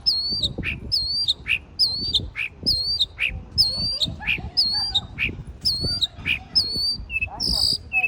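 A songbird singing the same two-note phrase over and over, about once a second: a high whistled note with a hooked turn, then a lower falling note. Near the end it switches to a harsher, buzzier phrase.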